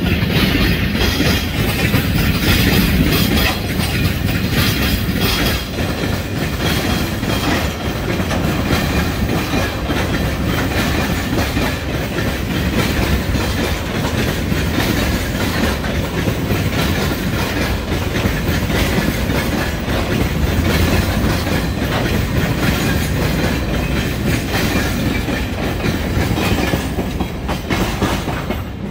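Wagons of a steel freight train rolling past at close range, their wheels clattering over the rail joints in a steady run of clicks.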